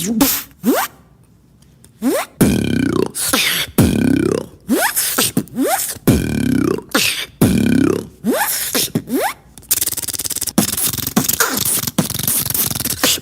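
Beatboxer making a vocal sound effect with the mouth: a run of falling, swooping pitched sweeps with a heavy low end, about one every second and a half. Near the end they give way to a fast buzzing rattle.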